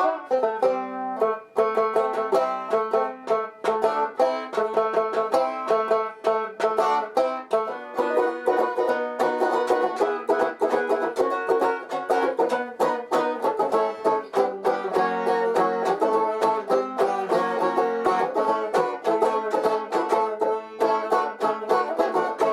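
Banjo being picked in a fast, continuous run of bright, twangy notes.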